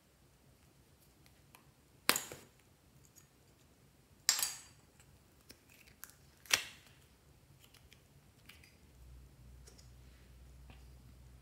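Three short, sharp crackles about two seconds apart as clay and its plastic mould are handled by hand. A faint low hum comes in near the end.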